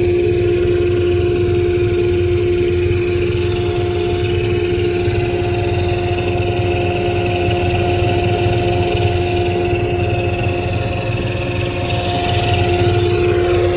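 Electric motor-driven machinery running steadily: a constant low hum with a clear, unchanging whine on top.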